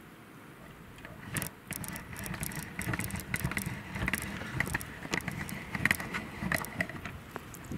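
Horses close up, making a run of irregular crackles, crunches and clicks that starts about a second in and is loudest near six seconds.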